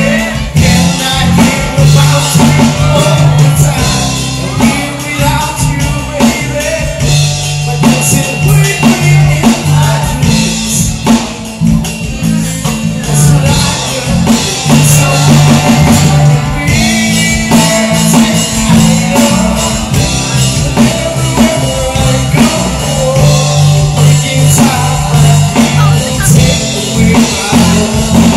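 Live band playing: a man singing into a microphone over a drum kit and electric guitar.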